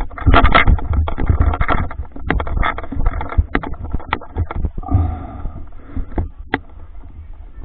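Water splashing and sloshing against a camera held at the water's surface, with rubbing and clicking handling noise on its case; the loudest splashing is in the first two seconds.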